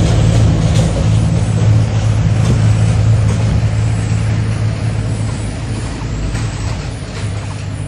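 A motor engine running with a steady low hum that slowly gets quieter.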